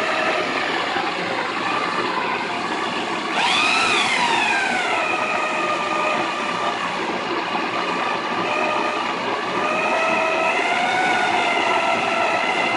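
Corded electric drill driving a barley grain mill, its motor whining steadily over the grinding rush of malted barley being crushed between the mill's rollers. About three seconds in, the motor's pitch jumps up sharply and then sinks back over a second or so as its speed changes.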